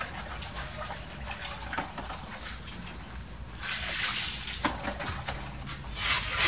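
Hands laying dry wooden kindling sticks and lumps of charcoal on the metal grate of a charcoal grill box: small clicks and scraping rustles. A louder rushing, rattling noise comes about four seconds in, and a shorter one near the end.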